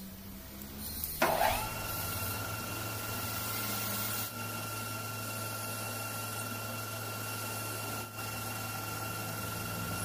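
Metal lathe switched on about a second in, then running steadily with a low motor hum and a high, steady whine as its chuck spins a piston. The running sound dips briefly twice, at about four and eight seconds.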